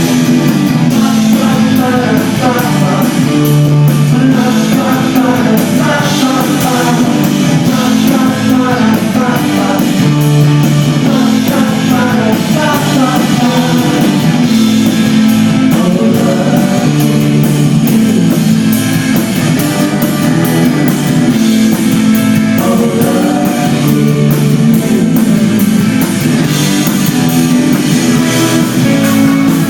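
Live rock band playing: electric guitars, bass and drum kit with a sung vocal line.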